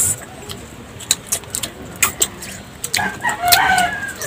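A rooster crows once, about three seconds in, over scattered light clicks and taps of spoons on dishes.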